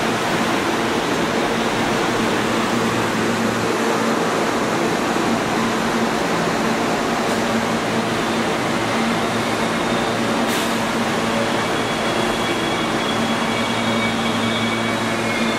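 New York City subway train running at a station: a steady loud rush of wheel and motor noise with a constant low hum, and faint high wheel squeal near the end.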